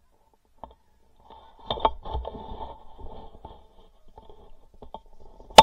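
Handling noise from a camera mounted on a shotgun as the gun is swung: irregular rustling and scraping with a low rumble and light knocks. A single sharp knock about five and a half seconds in is the loudest sound.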